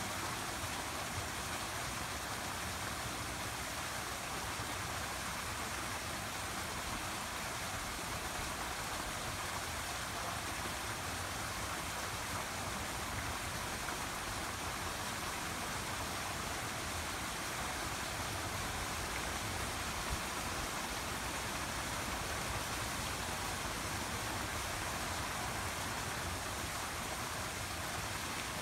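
Steady, even rushing of water, with no distinct events.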